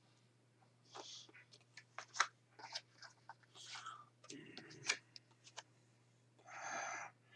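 Quiet handling noises: scattered soft clicks, taps and rustles of picture flashcards being put down and picked up, with a short breathy rustle near the end.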